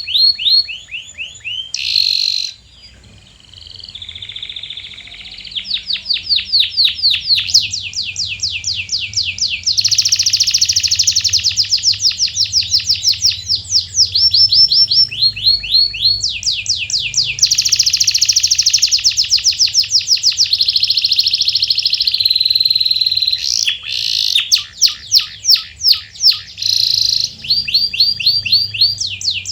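Domestic canary singing: long rolls and trills of fast repeated notes, the tour changing every few seconds, with a brief quieter stretch about three seconds in.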